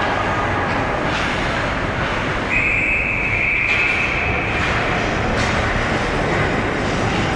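Referee's whistle blown once, a shrill tone lasting about a second, beginning about two and a half seconds in, over the steady rushing noise of an ice hockey game with occasional sharp clicks.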